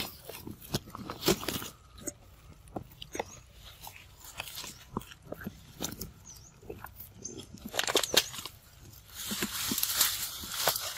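Macaques biting and chewing leaves and stems close by, a string of crisp crunching clicks, with rustling of the vines and leaves they sit in that grows loudest near the end.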